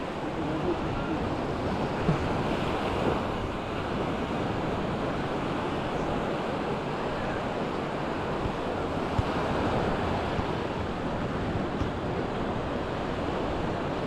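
Small sea waves washing onto a sandy shore in a steady wash of surf, with wind buffeting the microphone.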